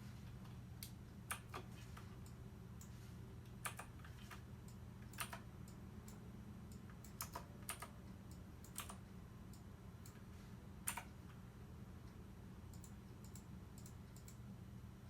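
About a dozen faint, irregularly spaced clicks, like key or button presses, over a steady low electrical hum.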